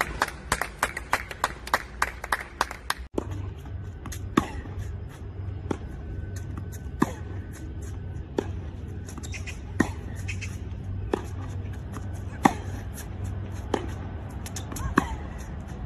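Tennis balls struck by a racket in a baseline rally, sharp knocks about every second and a half with a short twang of the strings. A quick run of sharp clicks comes first, cut off abruptly about three seconds in, with a low steady hum underneath afterwards.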